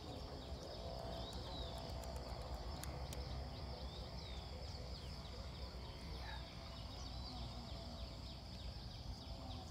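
Outdoor ambience of birds and insects: a steady high insect drone with many short, falling bird chirps throughout, over a low rumble.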